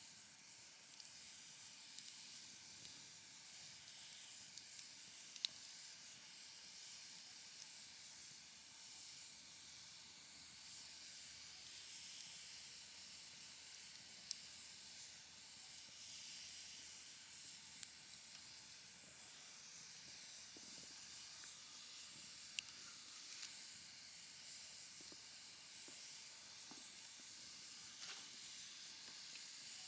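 Wood fire burning with a faint, steady hiss, broken by an occasional sharp pop or crackle.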